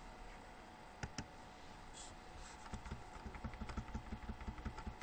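Two sharp clicks about a second in, then a quick run of light computer keyboard key taps, several a second, over a faint steady hum.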